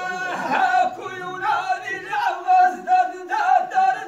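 A group of men chanting sung verse together. One long held note gives way to short repeated sung phrases with a pulsing rhythm.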